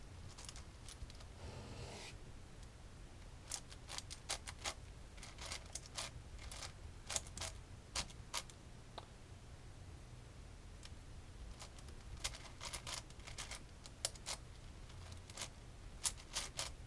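Plastic layers of a large Rubik's cube clicking as they are turned by hand during edge pairing: irregular runs of sharp clicks, with a pause of about two seconds around the middle.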